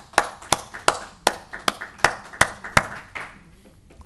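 A small audience applauding: a loose haze of hand claps, with one set of loud claps at about three a second standing out. The applause dies away a little after three seconds in.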